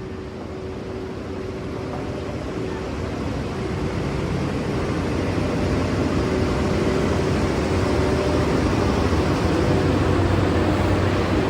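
A train rolling along the track, its rumble growing steadily louder as it nears or gathers speed.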